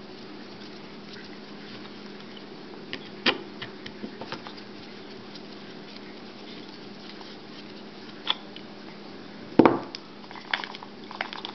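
Scattered small clicks and taps of hands handling the plastic motor housing of a Vortech MP10 powerhead and setting down its small Allen head screws, with one louder knock about ten seconds in. A steady low hum runs underneath.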